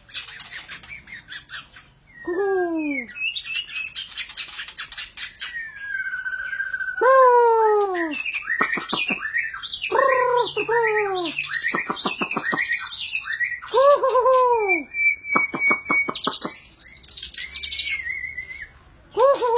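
A caged long-tailed black songbird singing a loud, varied song: downward-sliding whistles, held whistled notes and rapid sharp high notes, in phrases with short pauses.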